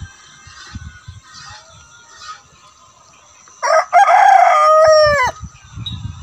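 Rooster crowing once, loud and about a second and a half long, starting about three and a half seconds in; the call drops in pitch at its end.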